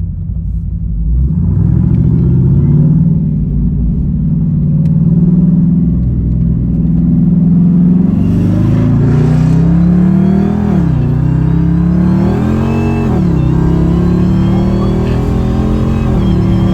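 A Dodge Hellcat's supercharged V8 under hard acceleration. The revs climb from about a second in, drop sharply at two quick upshifts about ten and thirteen seconds in, then climb again, with the tyres spinning for grip.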